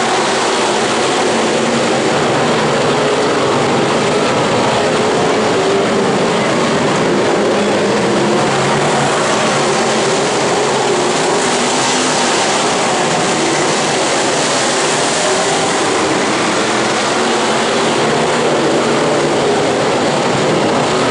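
A pack of dirt-track stock cars racing around the oval, their engines running together in a loud, steady drone.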